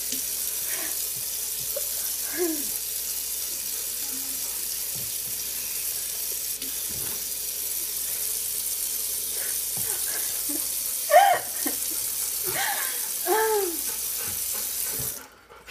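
Kitchen tap running steadily into the sink, stopping abruptly near the end. A few short vocal sounds over it, the loudest about two-thirds of the way in.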